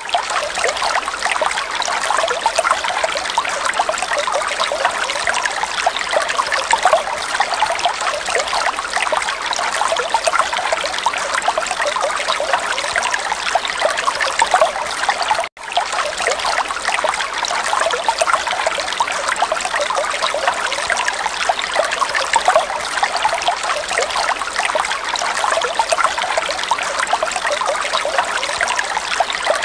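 Running water trickling steadily, like a stream or small fountain, cutting out for a split second about halfway through.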